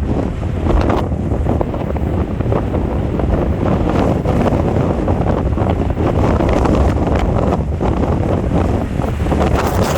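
Strong gusty wind of about 90 km/h buffeting the microphone: a loud, continuous low rumble with constant rapid buffeting.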